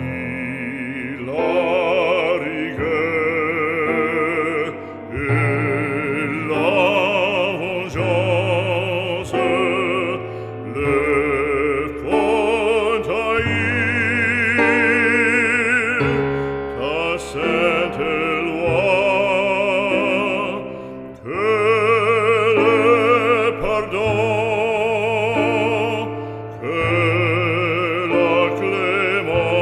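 Background music: an operatic voice singing long, wavering notes with wide vibrato over a sustained accompaniment with held bass notes.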